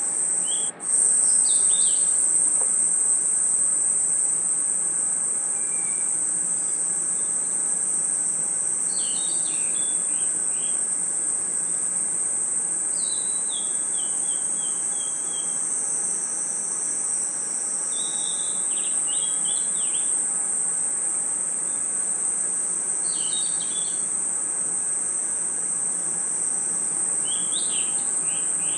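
Night insect chorus of crickets: a steady high-pitched trill, with a clutch of short descending chirps every four to five seconds. There is a brief dropout about a second in.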